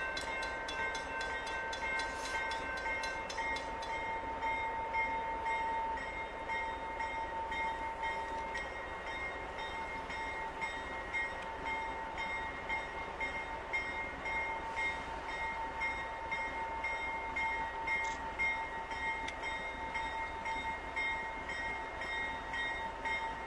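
Railroad grade-crossing warning bell ringing in a steady run of evenly spaced strokes while the crossing signals are active ahead of an approaching train.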